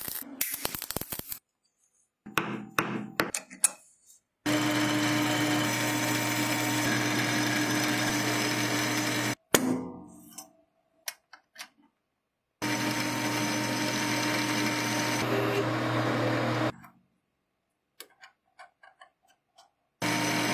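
Metal lathe running in three spells of a few seconds each, a steady motor hum with cutting noise, each cutting in and out abruptly. Between the spells come light clicks and knocks of small steel parts being handled at the chuck. It opens with about a second of crackling from an electric welding arc.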